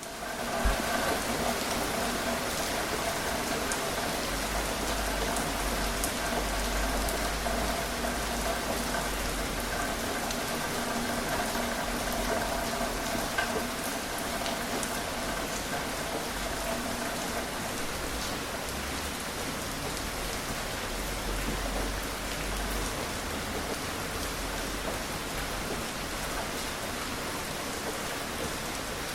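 Steady rain falling, with scattered drops ticking sharply through the hiss. A faint steady hum sits underneath for the first half, then fades.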